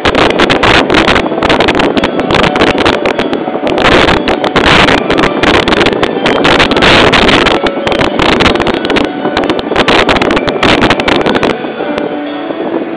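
Loud, rough wind buffeting on the microphone, crackling throughout and easing off sharply near the end, where a few faint steady tones show through.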